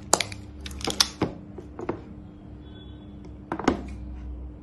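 Sharp clicks and taps of hands handling a plastic-wrapped plastic power strip: a few quick clicks at the start, more around one and two seconds in, and a pair near the end, over a faint steady hum.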